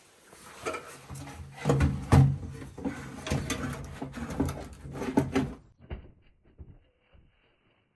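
Clatter and knocking of hard objects being handled, a series of sharp knocks that is loudest about two seconds in. It cuts off abruptly near six seconds in, leaving only faint, thinner-sounding taps.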